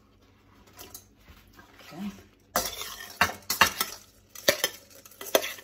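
Metal fork stirring fried tofu cubes in a stainless steel mixing bowl, scraping and clinking against the bowl's side. The stirring starts about halfway through, with several sharp clinks.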